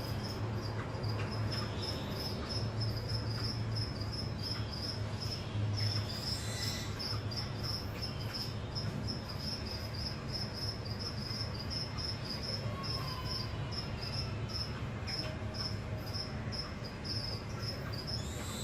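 Short high chirps repeated evenly and without a break, about three a second, over a low hum, with a few faint softer calls now and then.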